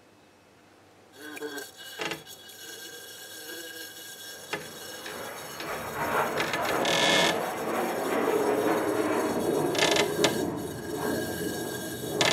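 A bumblebee buzzing and rattling against the inside of a glass vase, starting about a second in and growing louder from about six seconds in, with a few sharp clicks.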